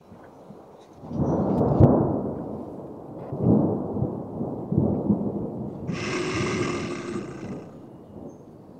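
A deep rumbling sound effect that swells three times, then a harsher, brighter rasp for about a second and a half near the end before it fades out.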